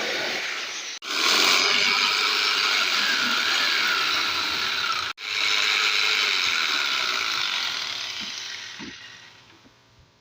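Repaired electric jigsaw running with a steady mechanical buzz, cutting out abruptly twice for an instant and then dying away over the last couple of seconds.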